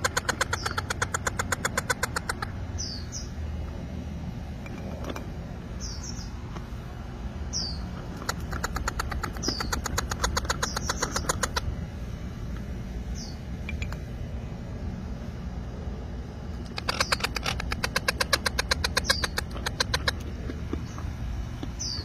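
Parrot chicks begging for food: three bouts of fast, rhythmic chattering pulses, with short high chirps in between.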